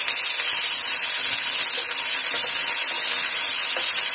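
Chopped onions, whole spices and ginger-garlic paste sizzling in hot oil in a non-stick frying pan as they are stirred with a spatula: a steady frying hiss.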